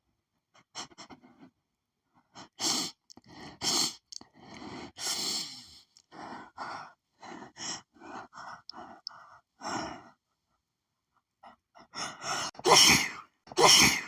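A woman sneezing again and again in an allergic sneezing fit set off by lily pollen. Several sharp sneezes come, with a run of short, hitching breaths between them, and the two loudest sneezes come near the end.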